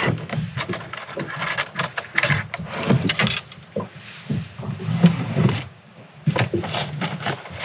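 Clattering, clicking and knocking as items are handled and rummaged through in a boat cabin's galley cupboards, over a steady low hum.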